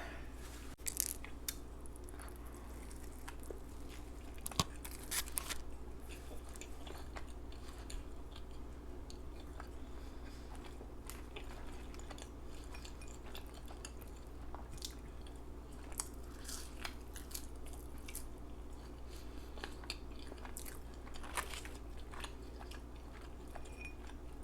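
A person chewing fast food close to the microphone, with irregular wet smacks and mouth clicks.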